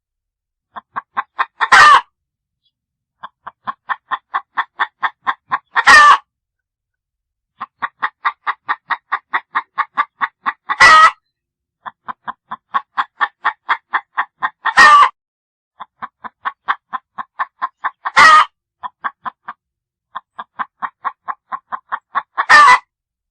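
A hen cackling: runs of short, quick clucks, each run ending in one loud, drawn-out squawk, repeated about every four seconds, six times.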